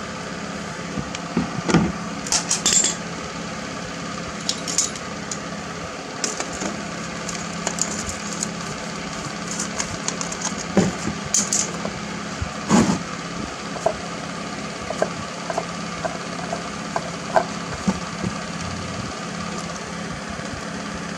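Used oil draining in a stream from the oil pan of a Chevrolet 350 V8 into a drain pan, over a steady low hum, with scattered sharp metallic clicks and clinks as the oil filter is worked loose and comes off near the end.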